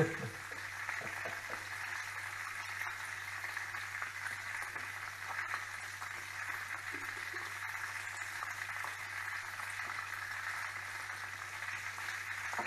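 Chicken frying slowly in hot oil: a steady crackling sizzle, with a low steady hum underneath.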